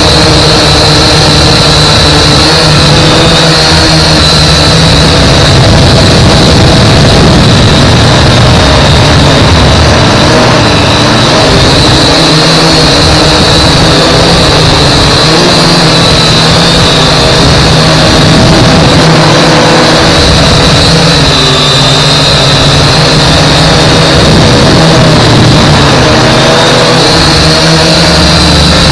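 Global Drone X183 quadcopter's motors and propellers heard from its own on-board camera: a loud, steady high whine whose pitch wavers slightly as the motor speed changes, over a low rumble of wind on the microphone.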